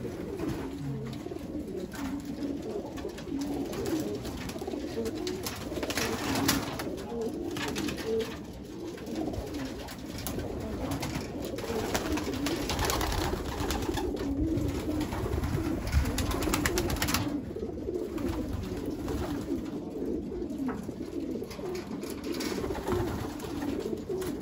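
A loft full of racing pigeons cooing, many birds at once in a steady overlapping chorus, with a few short sharp sounds now and then.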